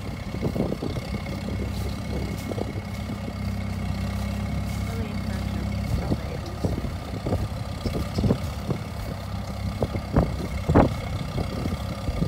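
Farmall M tractor's four-cylinder engine running steadily under load while pulling a two-bottom plow. Irregular sharp knocks join it in the second half, the loudest about two seconds before the end.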